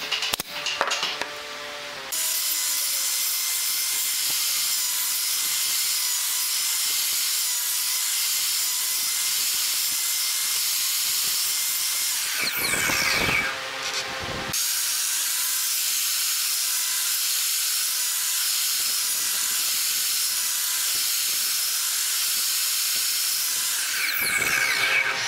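A pneumatic nail gun fires a few sharp shots, then a sliding miter saw runs with a steady high whine. About twelve seconds in and again near the end the blade cuts into a pine block, louder and dropping in pitch under load, as a series of kerfs is cut to clear a notch.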